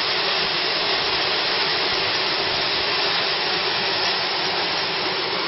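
Creek water cascading over boulders in a small waterfall: a steady, even rushing.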